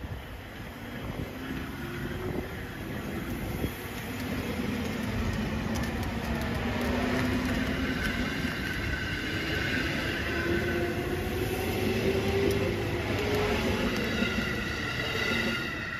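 KiHa 283 series diesel multiple unit running along the track, its diesel engines droning over the rumble of wheels on rail. It grows louder over the first several seconds, and the engine tones slowly rise in pitch.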